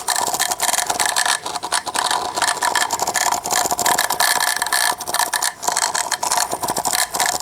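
Small electric water transfer pump running with an uneven rattling hum, barely turning and stalling on and off instead of spinning freely. The fault is in the pump itself rather than the electrical connection, perhaps the pump head or impeller binding because it is too tight.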